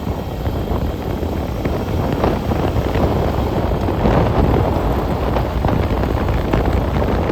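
Royal Enfield Meteor 350's single-cylinder engine and exhaust running steadily while the motorcycle cruises at highway speed, with heavy wind buffeting on the microphone.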